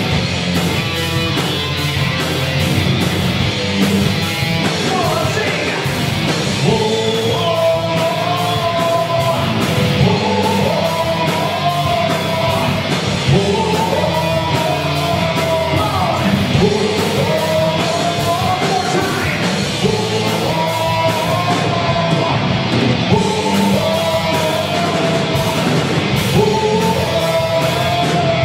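Live rock band playing electric guitars and drums, with a voice singing from about five seconds in.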